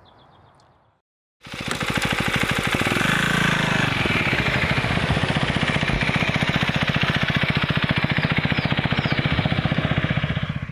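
Husqvarna Vitpilen 401's single-cylinder engine running as the motorcycle is ridden past, with a fast, even pulsing from the exhaust. It starts abruptly about a second and a half in and cuts off suddenly near the end.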